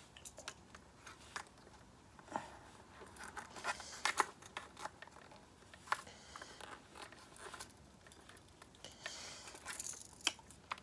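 Faint, scattered clicks, knocks and rustles of a Xenith X2E+ football helmet being handled while a part is worked through its fittings.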